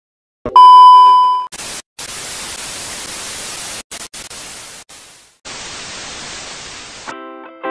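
TV static transition effect. It opens with a loud steady high beep lasting about a second, followed by hissing white-noise static with several brief dropouts. Plucked electric guitar notes come in near the end.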